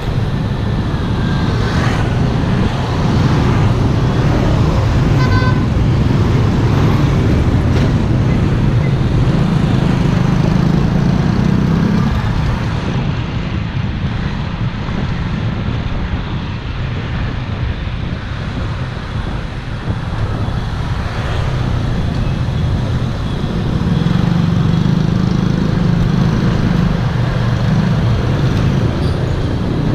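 Road traffic and wind noise heard on the move: a steady low rumble that swells and eases, with a short pulsed horn beep about five seconds in.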